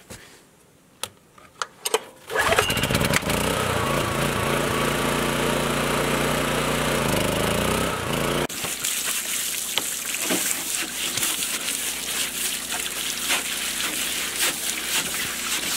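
Kohler PRO 2.8i inverter generator starting after a few handling clicks and then running, its engine pitch shifting, until it cuts off abruptly about halfway through. A steady hiss with scattered clicks follows.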